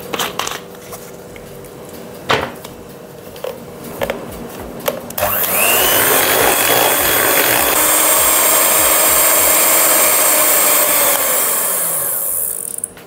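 Electric hand mixer beating thin cake batter in a glass bowl: it starts about five seconds in, rises in pitch as it spins up, runs steadily, and winds down just before the end. Before it, a few sharp knocks and clicks.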